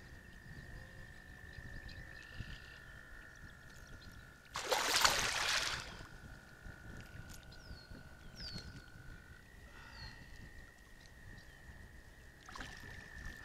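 Hooked channel catfish splashing at the water's surface beside a kayak, one loud splash about a second and a half long, about five seconds in, with smaller splashes near the end. A few short falling chirps and a faint steady high tone sound behind it.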